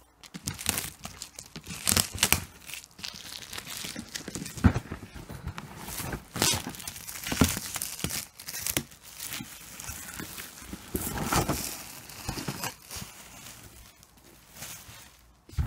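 Plastic shrink-wrap being cut and torn off a cardboard box, crinkling and crackling in irregular bursts with a few sharper rips.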